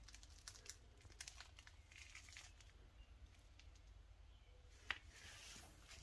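Near silence with faint rustling and light clicks, and one sharper click about five seconds in.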